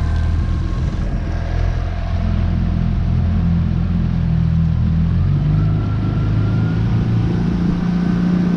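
20 hp Mercury outboard motor running under throttle, pushing an inflatable dinghy. It holds a steady, loud engine note, with a higher whine that climbs slightly about halfway through and then holds.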